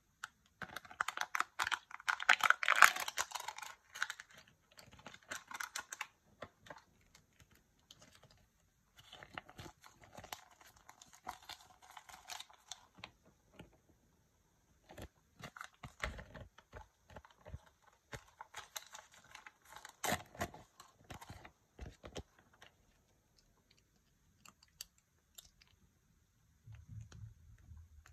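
Crinkling and crackling as the foil seal of a Kinder Joy egg's plastic capsule is peeled off, loudest in the first few seconds, then intermittent rustling of the paper instruction leaflet and small clicks of plastic toy parts being handled, in bursts with pauses between.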